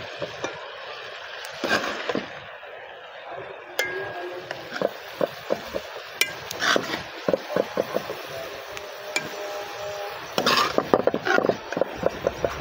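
A metal ladle clinks and scrapes against a metal cooking pot and serving bowl as fish meatballs and gravy are ladled out. The knocks and clinks are irregular, with a dense cluster near the end.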